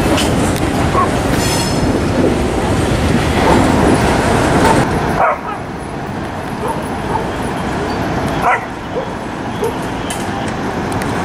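Freight cars rolling past with a steady rumble of wheels on rail. About five seconds in, this gives way to quieter background, and a dog barks a few short times.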